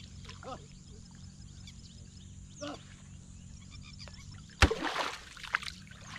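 A long wooden stick slapped down hard onto shallow water once, about two-thirds of the way in, a sharp smack and splash, followed by a smaller splash, as it is struck at a fish. Frogs call steadily in the background.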